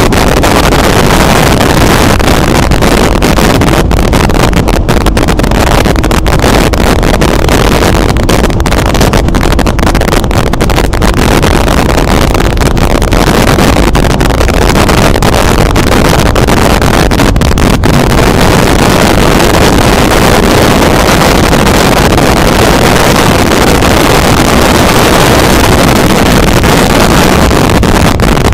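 Motorcycle riding uphill with strong wind blasting the microphone. The wind noise is loud and steady, near clipping, and buries the engine.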